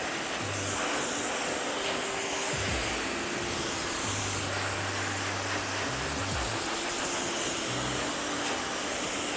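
Dyson Supersonic hair dryer blowing steadily on high speed during a blow-dry, over background music with a low bass line.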